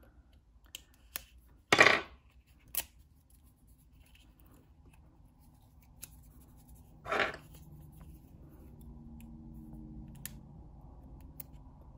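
Metal tweezers picking at the end of a roll of washi tape: a few short scrapes and clicks, the loudest about two seconds in and another about seven seconds in. From about eight seconds a faint low drone of aircraft from an air show sets in behind it.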